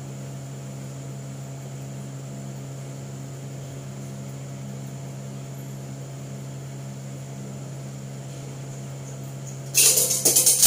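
A steady low hum with a faint hiss. Near the end comes a loud clatter lasting about a second as a metal kitchen utensil falls onto the floor.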